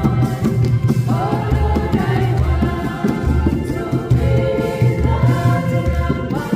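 A church choir singing a hymn with a low bass accompaniment.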